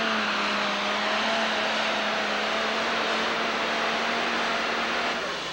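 Pro Stock pulling tractor's turbocharged diesel engine running steadily at full throttle under load, with a held droning tone over heavy engine noise. It drops off about five seconds in.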